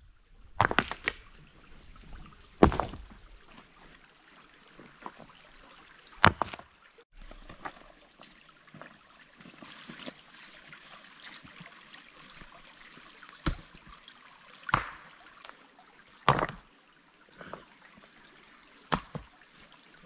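Stones knocking and thudding as flat rocks are carried and set down into a stone base, about eight sharp knocks with the loudest about three seconds in. A shallow stream trickles steadily underneath.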